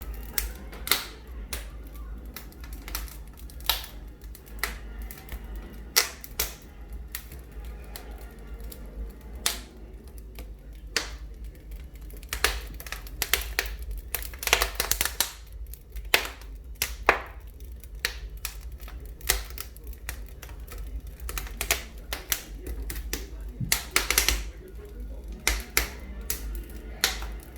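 Wood fire crackling in a fireplace, with irregular sharp pops and snaps, some close together and some seconds apart, over a steady low hum.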